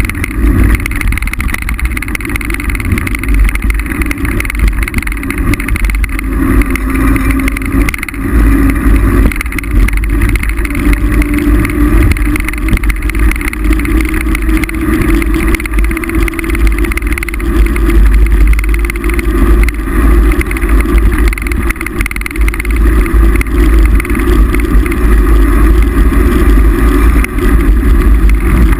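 Steady loud rumble of wind buffeting the microphone of a camera riding on a moving mountain bike, mixed with tyre and bike rattle noise; a low hum wavers in pitch as the speed changes.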